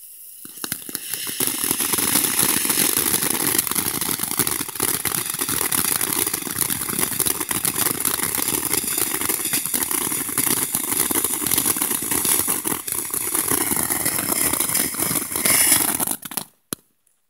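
Silver glittering ground fountain firework spraying sparks with a steady, crackling hiss. It builds up over the first second or two and cuts off suddenly about a second before the end as it burns out.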